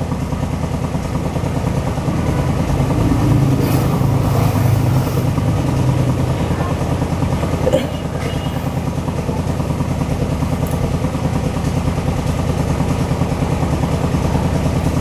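An engine running steadily close by, with a fine rhythmic low chug; it grows somewhat louder about three seconds in and eases off after about six seconds. A short sharp sound comes about eight seconds in.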